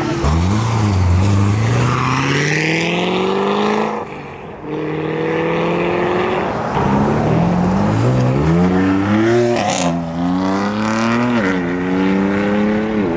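Car engines accelerating hard, their pitch climbing steeply several times and dropping back in between, with a brief lull about four seconds in.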